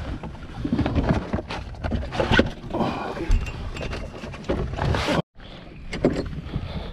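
Irregular rustling and knocking as a freshly caught zander is handled on a plastic measuring mat in the boat, over wind rumble on the camera microphone. The sound drops out for a moment about five seconds in and comes back quieter.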